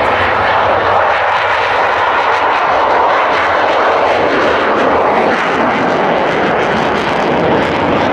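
Saab JAS 39 Gripen fighter's Volvo RM12 jet engine on afterburner during a low take-off run and steep pull-up: a loud, steady jet rush whose pitch slowly sweeps as the aircraft passes.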